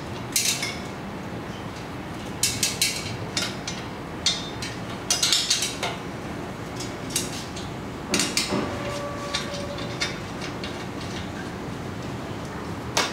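Metal exhaust parts, header pipes and a bolt-on flange, clinking and tapping against each other as they are handled and fitted by hand. About a dozen sharp clinks come in irregular clusters over a steady hiss.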